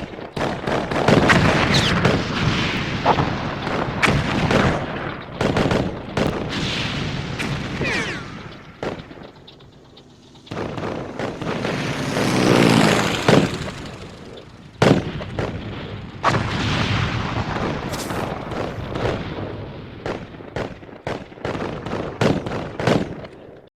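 Battlefield sound effect of rapid gunfire mixed with heavier booms and rumbling blasts. It eases off briefly about ten seconds in, swells with a loud rumble just after, and goes on firing until it cuts off at the end.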